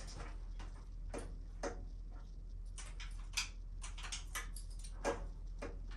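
Irregular light clicks and taps of tools and metal parts being handled and fitted during motorcycle reassembly, over a steady low electrical hum.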